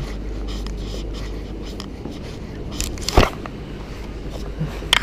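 Handling noise from a camera carried against clothing: fabric rubbing over a steady low rumble, with one sharp knock about three seconds in and a click near the end.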